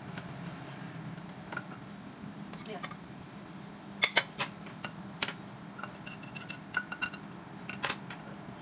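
Kitchenware clinking: a spatula and dishes knock together in two sharp clicks about four seconds in, followed by lighter clinks and a short clatter near the end, over a steady low hum.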